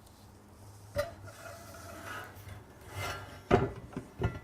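Portable band saw being slid and seated onto its table mounting plate: a knock, a couple of seconds of scraping, then two loud clunks near the end as it drops into place.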